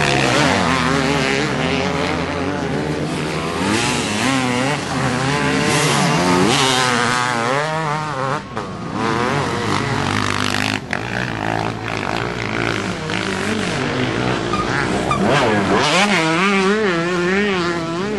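Off-road motorcycle engines revving up and down as several dirt bikes pass one after another, the pitch rising and falling with each throttle change, sometimes overlapping.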